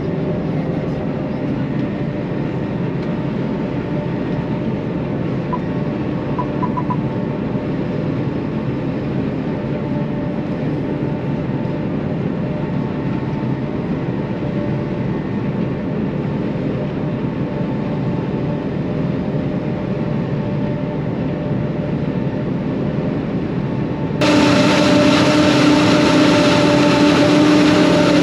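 John Deere self-propelled forage harvester running steadily while chopping maize, heard as a constant engine and machinery drone with a few steady tones. About 24 seconds in the sound suddenly becomes louder and brighter.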